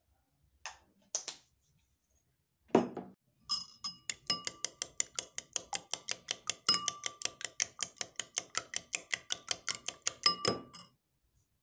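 Raw eggs being beaten with a metal spoon in a white ceramic bowl: a fast, even run of clinks, about five or six a second, each with a short ring from the bowl. It is preceded by a couple of light clicks and a single knock.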